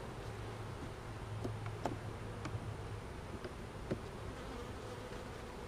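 Honeybees buzzing steadily around an open hive, with a few sharp clicks as a metal hive tool pries between the wooden frames.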